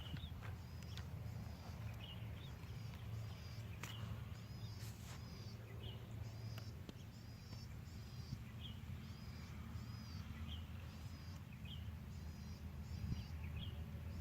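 A bird calling over and over, a short arched chirp about once a second, with a lower, shorter chirp every second or two, over a steady low rumble.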